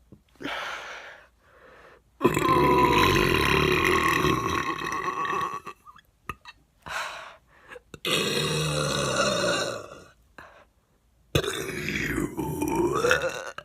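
A woman belching: a short, softer burp near the start, then three long, loud burps, the first lasting about three and a half seconds.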